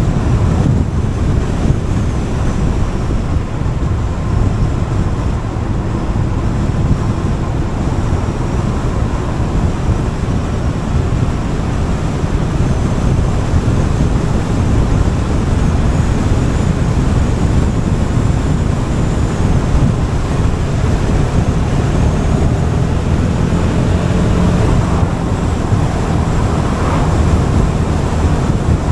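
Wind rushing over the microphone on a moving Gilera Fuoco three-wheeled scooter, with the scooter's single-cylinder engine running underneath at a steady pace.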